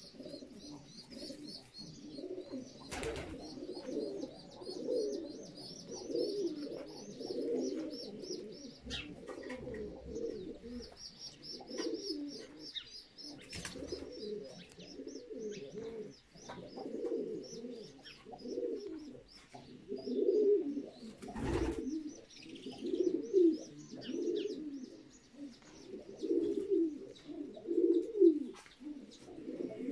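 Domestic pigeons cooing over and over, with rapid high chirping running above the coos. A few sharp knocks are heard along the way.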